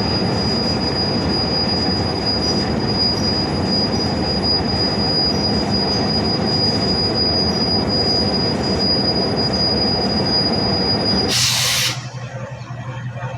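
Heavy machinery running loudly and steadily with a constant high-pitched whine over it. About eleven seconds in, a brief loud hiss, after which the sound drops to a quieter, steady low hum.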